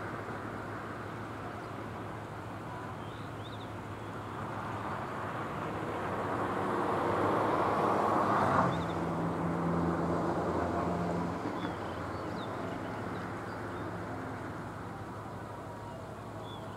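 A motor vehicle passing: its sound grows louder over several seconds, drops off sharply about eight and a half seconds in, then carries on as a lower engine hum that fades. A steady low hum runs underneath throughout.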